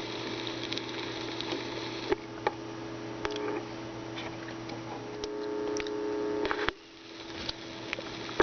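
Vinyl 45 RPM record playing a quiet stretch: surface crackle and scattered pops over a faint hum and faint held tones of music. The level dips briefly near the end.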